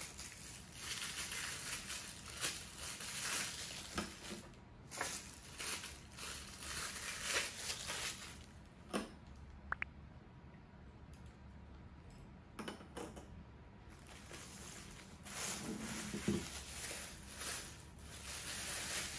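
Plastic packaging crinkling and rustling in repeated bursts as accessories are unwrapped, with a few light knocks and a short clink about halfway through.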